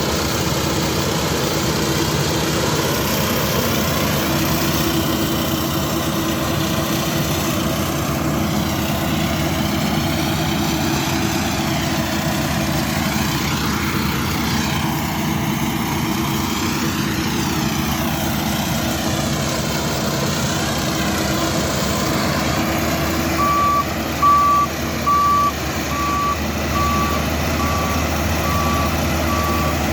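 Half-feed combine harvester running steadily, its engine and threshing machinery a constant loud drone. Near the end a warning beeper starts, repeating short beeps a little faster than one a second.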